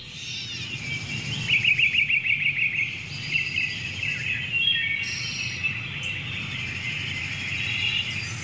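Songbirds chirping and trilling together, with a fast trill between about one and a half and two and a half seconds in.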